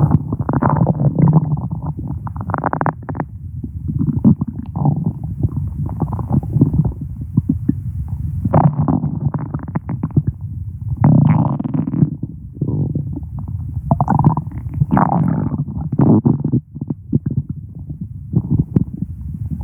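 A person's stomach growling: continuous low, irregular gurgling and rumbling, with louder gurgles swelling up every few seconds.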